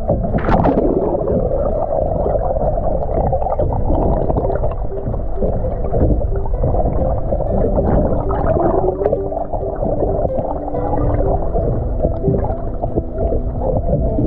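Muffled underwater sound picked up by a submerged action camera: steady low rumbling water noise with gurgles, a sharp splash about half a second in, and faint short tones scattered through.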